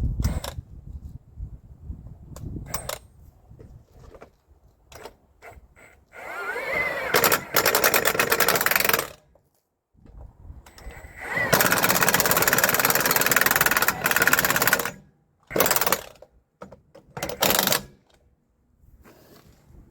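Impact wrench hammering on the truck's wheel lug nuts: two long bursts, each starting with a rising whine, then two short bursts, with small metal clicks before them.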